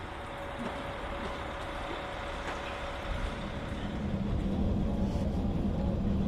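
KiHa 40 diesel railcar running, with a steady engine note that grows louder from about halfway through.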